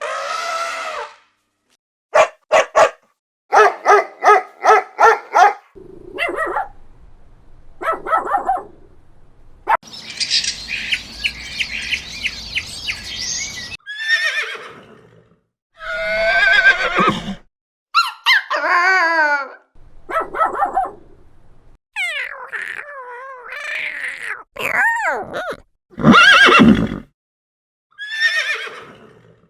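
A string of separate animal calls cut one after another with short silent gaps, several of them horses neighing and whinnying.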